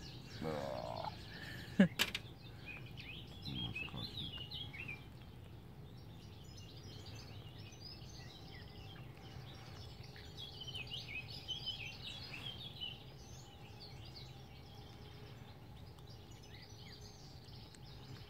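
Small birds chirping on and off, with a few sharp crunches near the start, the loudest about two seconds in, as a cat chews a mouse.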